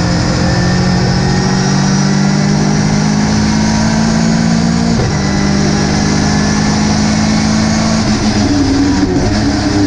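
Onboard sound of a Ginetta GT5 race car's engine running at fairly steady revs, its pitch stepping slightly about five seconds in and rising near the end, over steady road and wind noise.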